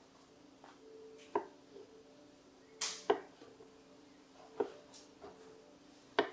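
A knife cutting through cornbread and knocking on a wooden cutting board: about five short, sharp knocks at uneven intervals.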